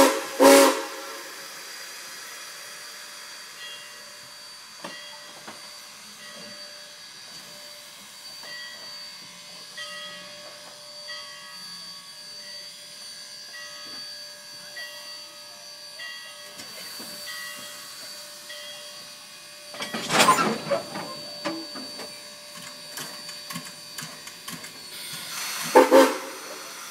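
Steam locomotive No. 464 hissing steam as it eases up alongside the platform, broken by loud short bursts of steam at the start, about twenty seconds in, and a quick pair near the end.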